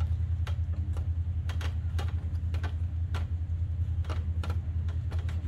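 Scattered, irregular sharp clicks and snaps from a person shifting about on a tree limb, over a steady low rumble.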